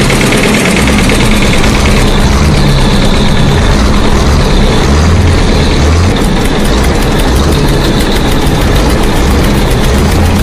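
A motor running steadily and loudly, with a low hum and a fast, even beat.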